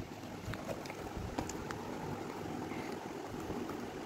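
Cardboard camera box being opened by hand: a few faint taps and scrapes of the flaps and insert over a steady background hiss.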